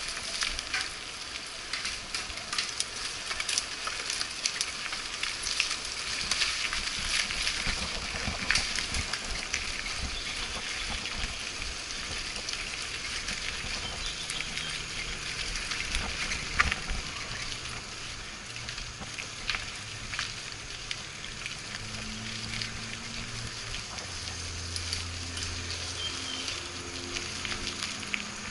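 Mountain bike tyres rolling over a wet, muddy gravel trail: a steady crackling hiss with many small clicks and knocks. A faint low hum comes in about halfway through.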